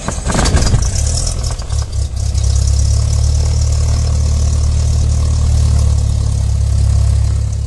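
Single-engine light airplane's piston engine catching just after the starter cranks, with a few uneven coughs in the first second, then settling into a steady idle, heard from inside the cockpit.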